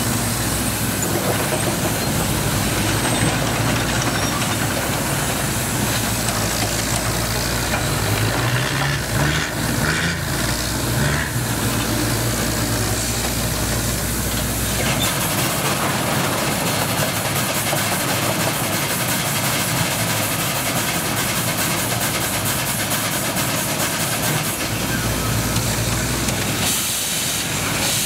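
Marion Osgood steam shovel working through a dig cycle: its steam engines hiss and run steadily as the dipper is lowered into the dirt and hoisted again. The low rumble eases off about halfway through and comes back near the end.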